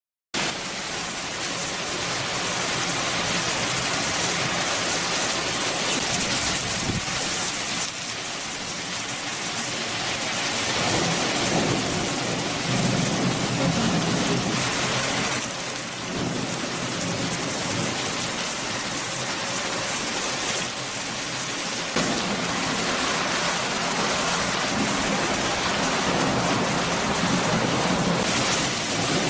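Steady heavy rain with low rumbles of thunder, swelling about a third of the way in and again later on.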